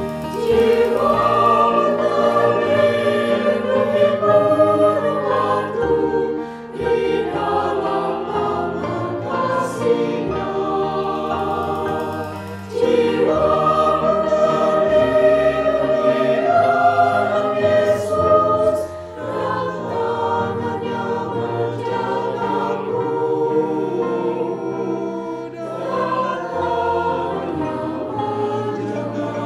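A mixed choir of mostly women's voices, with a few men's, singing a hymn. It sings in long phrases, with short breaks about every six seconds.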